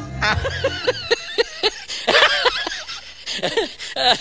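A person laughing hard in a long run of high-pitched bursts, loudest about halfway through.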